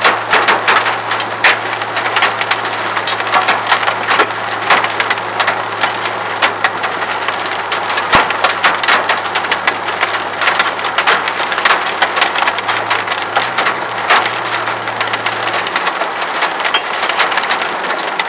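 Hailstones pelting a car: a dense, continuous rattle of hard impacts on the roof and windows, heard from inside the car.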